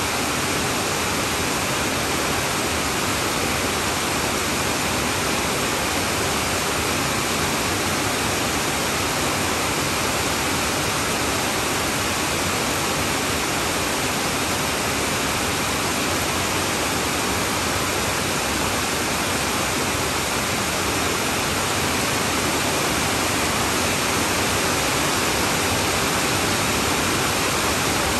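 Heavy rain drumming on a tin roof, a dense, steady downpour with no single drops standing out, a little louder in the last few seconds.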